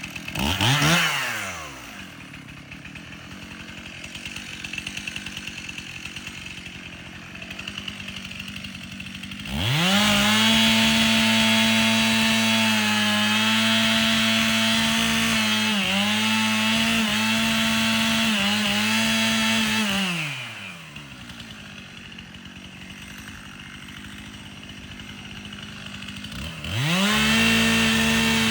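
Two-stroke chainsaw revving up and back down, then idling. About a third of the way in it goes to full throttle and holds for about ten seconds, its pitch dipping briefly a few times as the chain bites into the tree. It then falls back to idle and revs up to full throttle again near the end.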